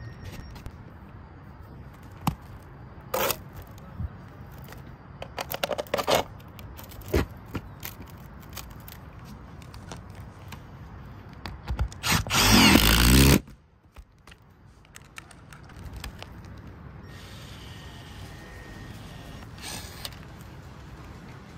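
A power drill-driver runs hard for about a second near the middle, driving a lag bolt down through an aluminium roof flashing into the rafter, with scattered knocks and clicks of handling before it. Near the end a battery-powered caulk gun whirs faintly as it pushes sealant.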